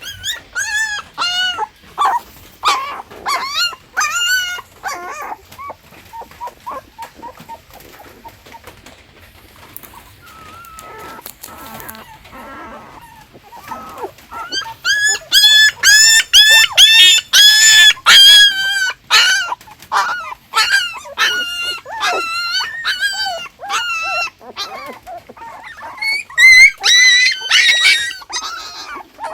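Newborn puppies crying: many short, high-pitched whining cries in quick bouts, sometimes overlapping. The cries fade to a quieter stretch for several seconds, then come back loudest in the middle and again near the end.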